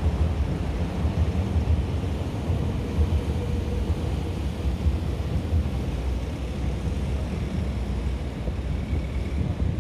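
Steady low rumble of outdoor city background noise, with no clear single event standing out.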